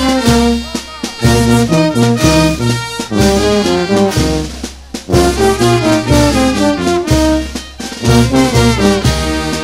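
Brass band playing a Negritos de Huánuco dance tune: trumpets and trombones carry the melody over a deep, steady bass line.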